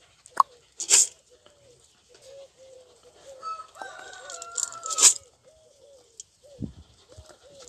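A rooster crows once in the middle, one long call of nearly two seconds, over short low calls repeating all through. A few brief, loud, noisy bursts stand out, about a second in and right after the crow.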